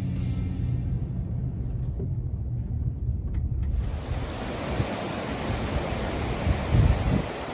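A low rumble that fades about four seconds in, giving way to a steady rushing noise with a few low buffeting thumps near the end, typical of wind blowing across the microphone.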